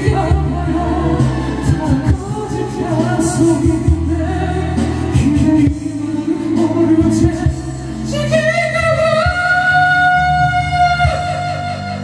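A voice singing a pop melody over backing music with a steady beat, holding one long note for about three seconds near the end.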